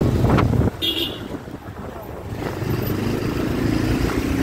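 Motorcycle engine running while riding, growing louder in the second half, over a low rumble of wind on the microphone that is loudest at the very start. A brief high-pitched tone sounds about a second in.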